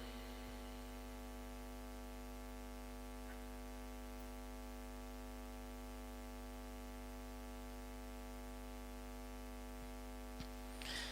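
Steady electrical mains hum with many overtones, the kind picked up by a microphone and amplifier chain, running unchanged through a pause in the recitation. A single faint click sounds near the end.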